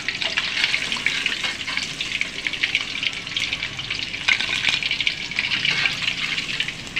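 Hot oil sizzling and crackling steadily in a wok as potato-wrapped chicken pieces deep-fry.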